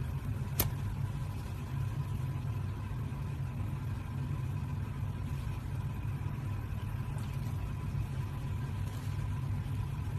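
Steady low hum or rumble with a faint steady high tone, and a single sharp click about half a second in.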